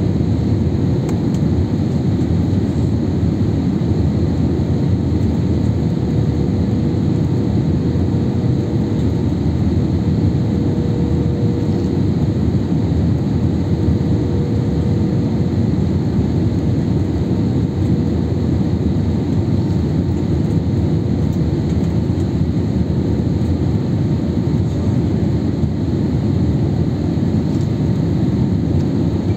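Steady cabin noise of a jet airliner on final approach, heard from a seat over the wing: the even noise of the engines and the airflow, with a faint steady hum, unchanging throughout.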